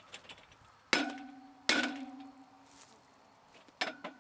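Three sharp metal clanks from a bicycle wheel mounted flat on a post as it is handled and worked on with a hand tool, each clank ringing on for a moment. The first comes about a second in, the second soon after, and the third near the end.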